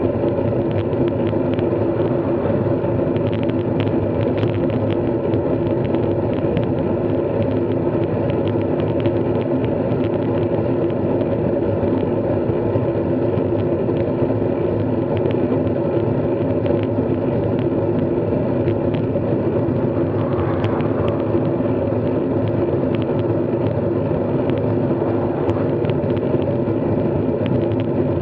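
Steady wind and road noise from a bike ride in motion, with a constant low hum under it and a few faint ticks.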